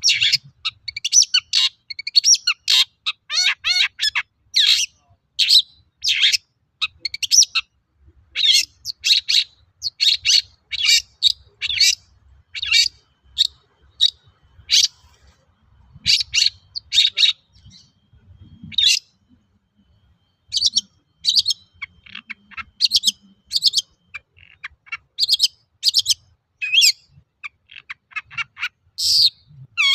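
Long-tailed shrike (cendet) singing a rapid series of short, high notes, several a second, with a brief pause about two-thirds of the way through.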